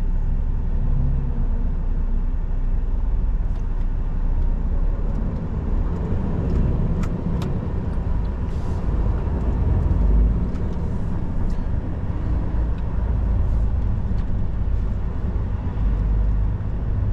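Tatra Phoenix tipper truck on the road: a steady low rumble of its diesel engine and road noise, with a few light clicks.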